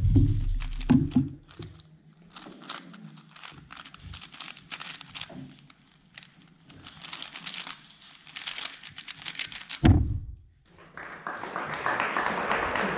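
Weilong GTS2M 3x3 speedcube being turned at full speed: a rapid, dense run of plastic clicks and clacks for about eight seconds. About ten seconds in comes a loud thump as the cube is set down and the hands come down on the Stackmat timer pads to stop the solve.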